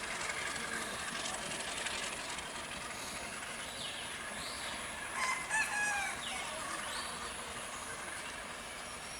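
A rooster crowing once, a falling call of about a second, over steady background noise.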